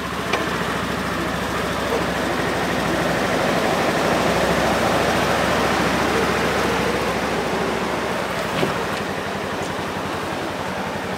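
Side-by-side UTV engine running steadily as the machine drives, with a couple of faint clicks.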